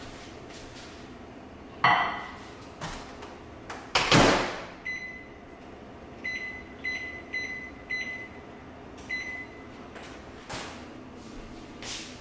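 GE over-the-range microwave: a knock, then the door shut with a loud clunk, followed by six short, high keypad beeps as buttons are pressed.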